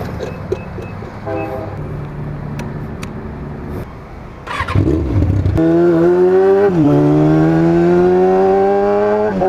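Freshly valve-adjusted 2003 Kawasaki ZX-6R 636 inline-four idling, then pulling away hard: the engine note climbs, drops at an upshift partway through, and climbs again.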